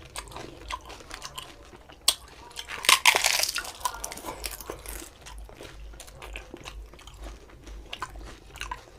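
Close-mic'd eating of fuchka (panipuri): a sharp crack about two seconds in, a loud crunch of a crisp puri shell being bitten about a second later, then chewing with small irregular crackles.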